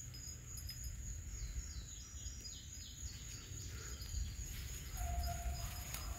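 Summer field ambience: a steady high insect drone, with a bird singing a run of short falling notes in the first half, over a low rumble. A brief held tone comes near the end.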